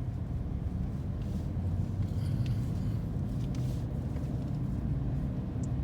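Steady low drone and road noise inside a 2014 Ford Escape's cabin while driving, the hum that a mechanic traced to a worn front driver-side wheel bearing.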